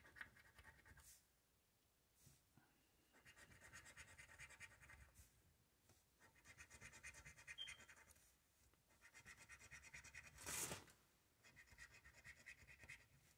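A coin scratching the coating off a paper lottery scratch-off ticket: faint, fast rasping strokes in short spells with brief pauses between them. The loudest scrape comes about ten seconds in.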